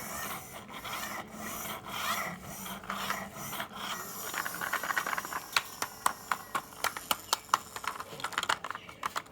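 Marbles rolling along a marble-run track with a continuous rolling rattle that swells and fades. About halfway through, many sharp clicks come in as the marbles knock against each other and the track.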